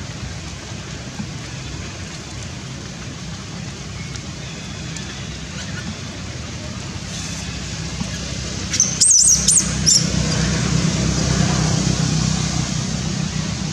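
Steady low hum with a noisy outdoor background, and a quick cluster of short, high-pitched squeaks about nine seconds in.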